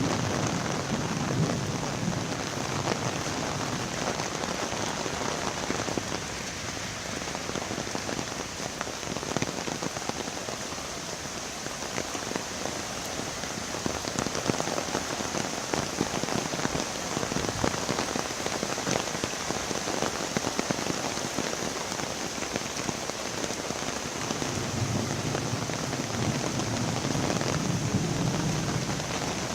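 Steady rushing of a flooded river's water, a dense, even noise with fine splashing ticks; a deeper low rumble swells near the end.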